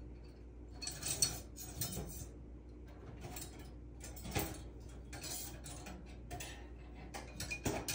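Metal cutlery clinking and clattering as a clean knife is fetched: a string of light clicks and rattles with a few sharper clinks.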